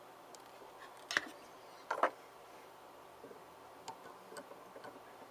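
Sharp clicks and light taps of small metal hand tools being handled on a soldering bench: one click about a second in, a double click about two seconds in, then a few softer ticks.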